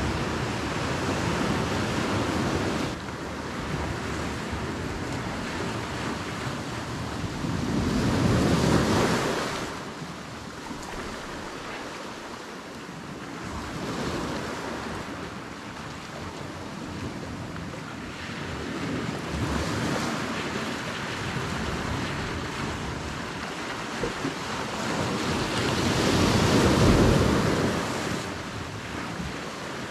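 Sea waves washing and surging, swelling louder twice and falling back, with wind noise on the microphone.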